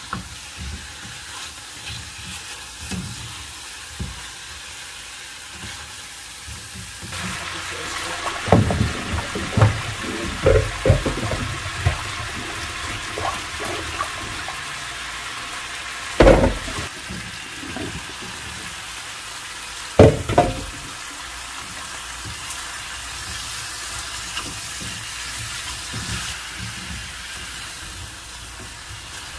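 Chicken pieces frying in a nonstick pan and being stirred. About seven seconds in, this gives way to water being swished by hand in a rice cooker's inner pot at a sink, with clattering and two loud knocks of the pot. Near the end the pan frying and stirring resumes.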